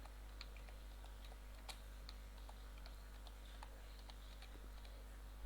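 Faint typing on a computer keyboard: scattered, irregular key clicks over a steady low electrical hum.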